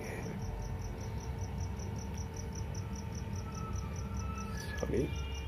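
A cricket chirping steadily in short high pulses, about five a second, over a low steady electrical hum.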